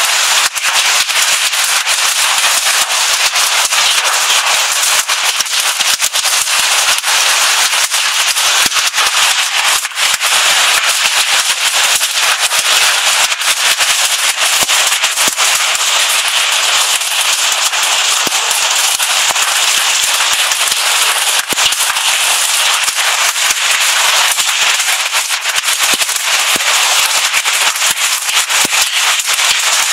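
Hail and heavy rain pelting down: a loud, dense, steady hiss of rain with a constant clatter of individual hailstone hits.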